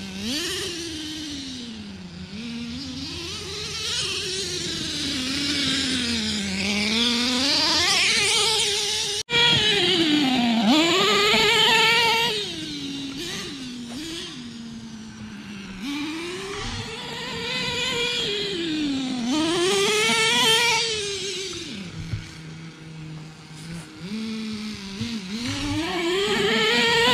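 Small nitro engine of a Redcat Earthquake 3.5 RC truck running, its pitch rising and falling again and again as the throttle is opened and let off. The sound cuts out for an instant about nine seconds in.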